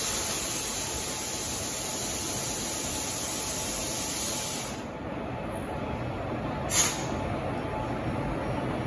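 Compressed air hissing steadily from the train's air-brake hoses during coupling of the locomotive to the coach, cutting off about five seconds in. A short, sharp burst of air hiss follows about two seconds later.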